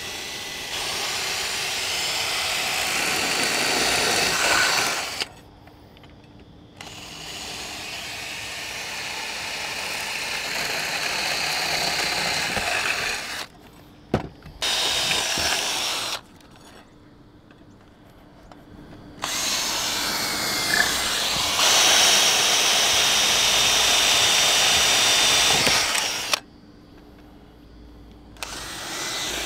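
Ryobi cordless drill running in rotary mode, without hammer action, driving a long 6.5 mm masonry bit into the mortar bedding under the roof ridge capping to bore weep holes. It runs in about five bursts of one to seven seconds with short pauses between, and there is a single sharp knock near the middle.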